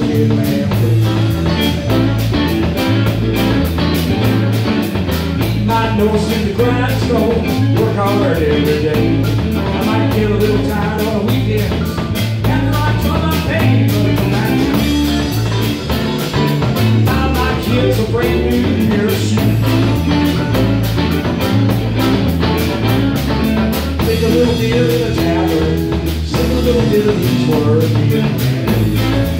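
Live band playing a country-rock tune: electric guitars over a Fender electric bass line and a steady drum-kit beat.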